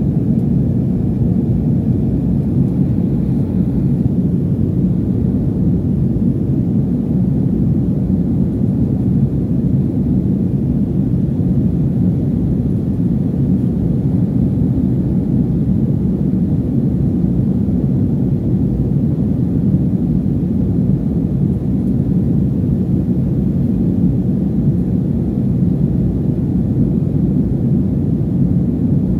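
Jet airliner cabin noise in flight: the steady low rumble of the engines and airflow, heard from a window seat inside the cabin.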